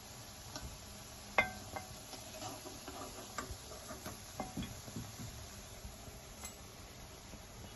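Light clinks and taps of dishes and utensils, with one sharper ringing clink about a second and a half in.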